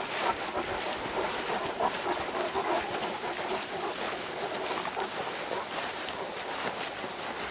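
Footsteps and the paws of a pack of Great Danes swishing through long grass, a steady rustle broken by many soft steps.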